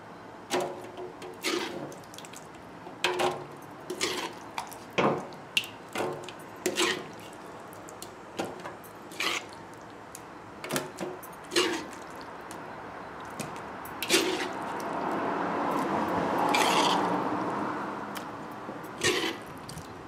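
A spoon scraping and knocking against a metal pot while thick chickpea and potato curry drops with wet plops into an aluminium foil tray, about once a second. Toward the end a longer wet sliding sound as the curry is scraped out of the tipped pot.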